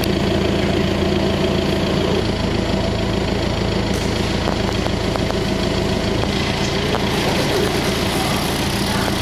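Dieci telehandler's engine running steadily while it holds a suspended load on its boom. The engine note shifts about two seconds in and again around six seconds in.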